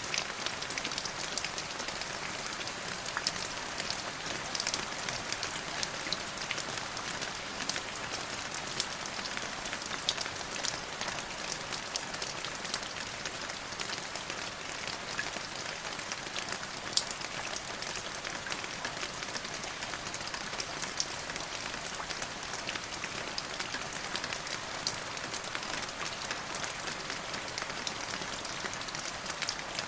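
Steady rain falling on a hard surface, an even hiss dotted with many sharp drop taps.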